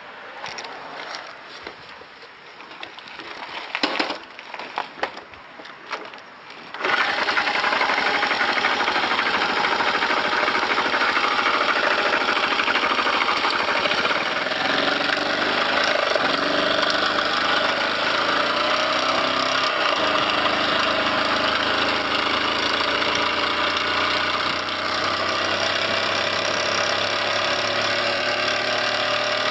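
Honda Press Cub's small single-cylinder engine starts about seven seconds in, after a few scattered clicks and knocks, and runs loudly with a harsh mechanical clatter. The owner takes the noise for a broken crankshaft bearing.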